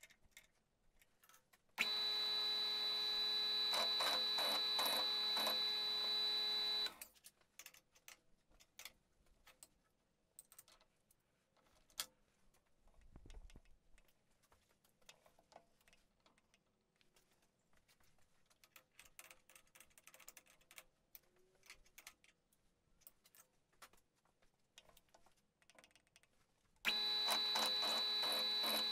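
Benchtop milling machine's spindle running with a steady high whine, once for about five seconds a couple of seconds in and again near the end, when its cutter is at a grade 8 bolt clamped in the vise. Between runs, faint clicks and taps of the machine being handled.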